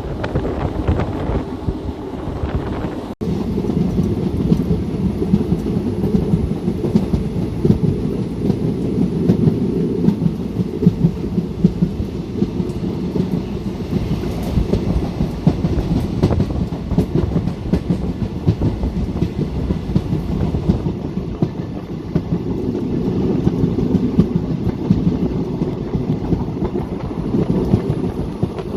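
Indian Railways passenger train running along the track, a steady rumble with wheels clattering over the rails, broken for an instant about three seconds in.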